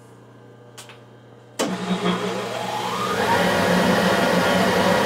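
Metal lathe switched on about a second and a half in: a faint hum gives way suddenly to the motor and spindle running, with a whine that climbs over the next second or so as it spins up, then holds steady.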